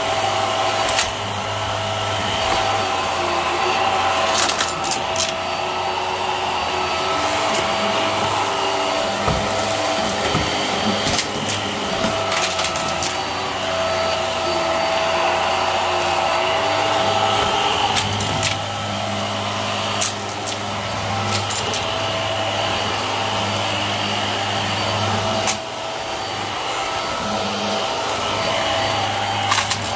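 Hart upright vacuum cleaner running steadily while being pushed over the floor, with scattered sharp clicks and rattles as debris is sucked up through it.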